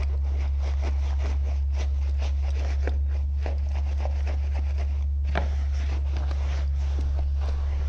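A wheel brush scrubbing a soapy wheel rim in quick, irregular strokes, over a steady low hum.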